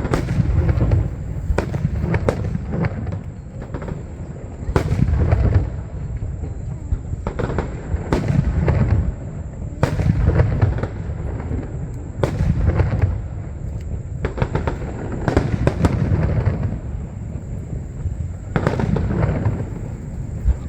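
Aerial fireworks bursting one after another: a deep boom with sharp cracks about every two to three seconds, each followed by a low rumble.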